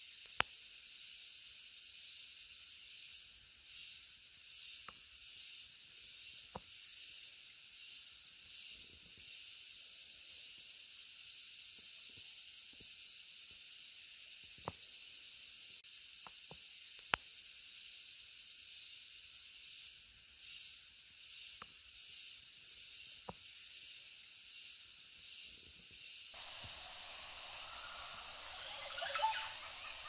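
Steady faint hiss of a shallow forest stream running over a muddy bed, with two sharp clicks, one just after the start and one about halfway. A brief, louder sound with shifting pitch comes near the end.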